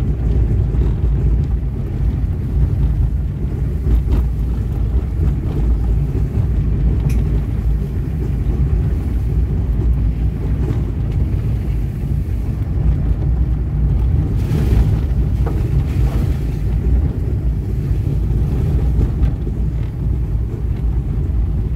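Small Hyundai car driving slowly over a rough dirt track: a steady low rumble of engine and tyres, with a few light knocks and rattles, about four, seven, fourteen and sixteen seconds in.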